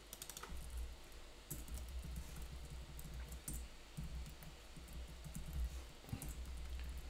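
Faint typing on a computer keyboard: irregular runs of key clicks as a short line of code is entered.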